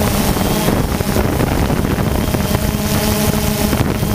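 Quadcopter drone's motors and propellers buzzing steadily as it hovers, a hum whose pitch wavers slightly, with wind buffeting the onboard microphone.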